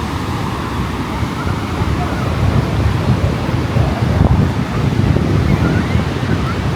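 Wind buffeting the microphone in gusts over the wash of ocean surf, with faint voices of people in the background.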